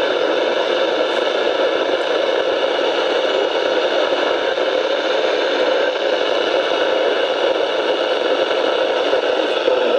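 Steady radio static hiss from a NOAA Weather Radio receiver, with no broadcast voice coming through.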